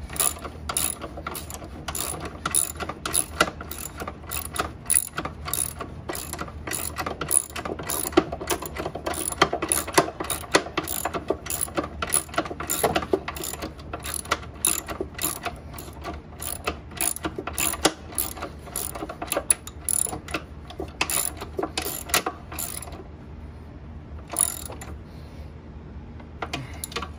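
Socket ratchet wrench clicking as a bolt is turned down, a long run of sharp clicks that stops about 23 seconds in, with one more click shortly after. It is tightening the bolt that holds the belt bracket on a Toro Timemaster mower deck.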